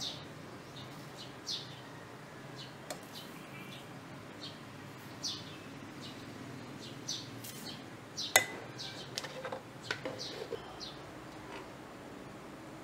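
Birds chirping now and then in short high calls, over a steady low hiss. A sharp click comes about two-thirds of the way through, followed by a few lighter clicks.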